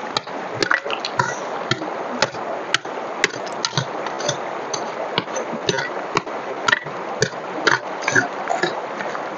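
Small hand pick striking and scraping into stony gravel, about two sharp strikes a second with a few scrapes between them: digging out a metal-detector target.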